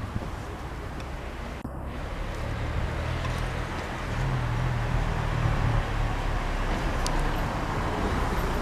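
City street traffic: a low engine rumble under steady road noise, growing louder about halfway through as a vehicle comes closer.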